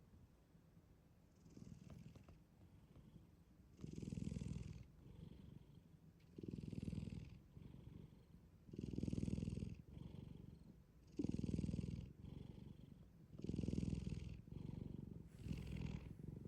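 A black cat snoring in deep sleep: a soft buzzing snore on each breath, about every two and a half seconds, growing louder after the first few seconds.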